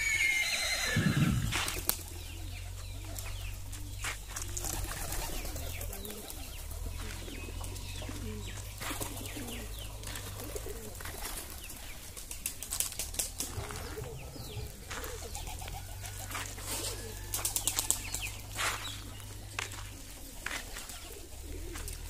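A horse whinnies once at the start, a call that falls in pitch. After it, doves coo and other farmyard birds chirp quietly now and then.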